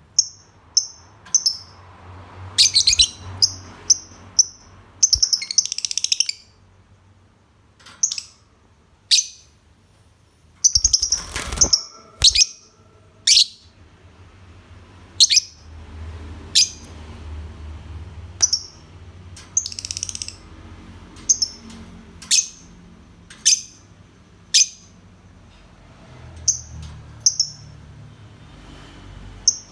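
Lovebird calling in short, shrill, high chirps at irregular intervals, some run together into quick chattering clusters. A brief scuffling noise comes about eleven seconds in.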